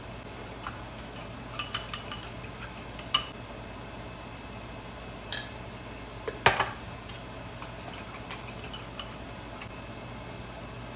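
Kitchenware being handled: utensils, dishes and containers clinking and knocking. There are light clicks, two sharp knocks, and a louder clatter with a short ring a little past the middle, then small ticks, over a low steady hum.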